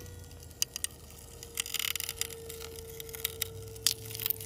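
Scattered light metallic clicks as a steel carabiner and a glue-in bolt's hanger are handled in the broken-out hole, with a brief scraping rustle about two seconds in. A faint steady tone and low hum lie underneath.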